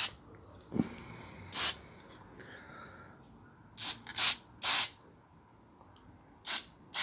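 Aerosol can of engine enamel spraying paint in short hissing bursts, about six of them, each well under a second long.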